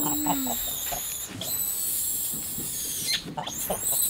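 Vervet monkeys screaming during a fight: a high-pitched shriek that breaks off briefly about a second in, resumes and holds until about three seconds in, then gives way to short calls.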